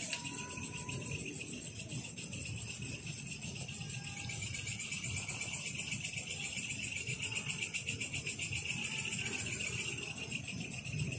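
A chorus of night insects, crickets or cicadas, trilling steadily in two high-pitched layers with a fast, even pulse.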